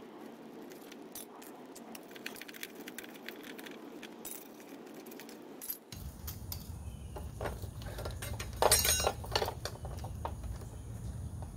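Small metal parts clinking and clattering: bicycle chainring nuts, bolts and the chainring itself being handled while an old chainring is taken off the crank and a new one fitted. A louder cluster of metallic clatter comes a little past the middle.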